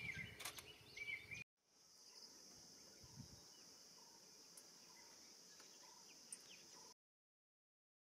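Faint wildlife sounds: a few short bird chirps in the first second or so, then a faint, steady, high-pitched insect drone that cuts off suddenly about a second before the end.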